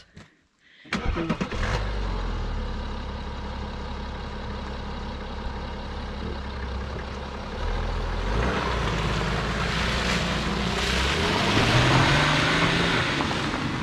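2015 BMW 330d xDrive's three-litre straight-six turbodiesel starting about a second in and idling, then pulling away about eight seconds in, its pitch rising as it speeds up, with tyres crunching on gravel.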